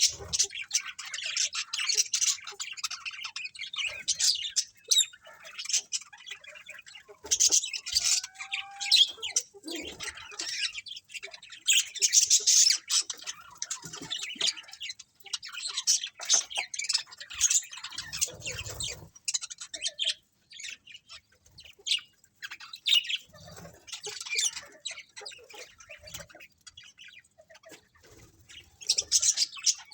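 A colony of budgerigars chattering and chirping in overlapping bursts of quick, high, warbling calls, with a few louder squawks.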